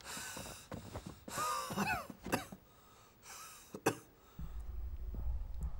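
A man coughing in a fit, several rough coughs with strained, pitched breaths between them, dying away after about four seconds: the coughing of a chronic lung illness. A low drone starts near the end.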